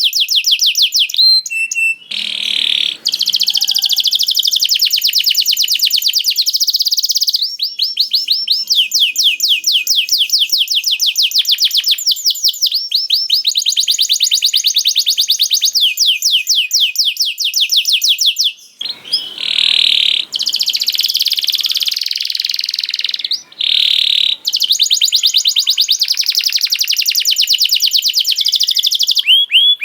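Canary singing a long, fast song of rapidly repeated high trill notes, rolling almost without pause and broken only by a few brief gaps.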